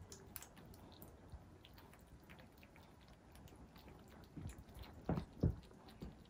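Several kittens crunching dry kibble: a stream of small, quick crunches, with two louder thumps about five seconds in.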